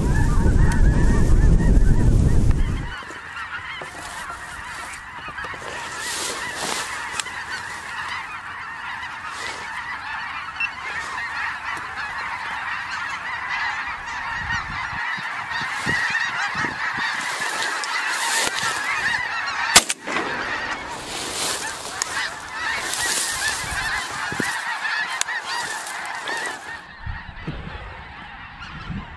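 A large flock of snow geese calling overhead, a continuous dense chorus of honks and yelps. Wind buffets the microphone with a low rumble for the first few seconds, and there is one sharp click about 20 seconds in.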